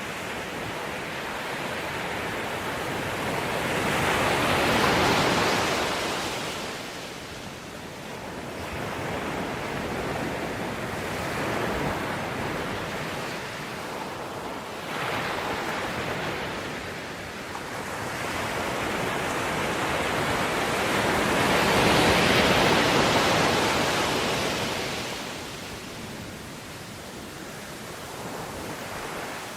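Ocean surf: waves breaking and washing back in slow, uneven swells of rushing noise. The two biggest breakers come about five seconds in and again a little past twenty seconds in.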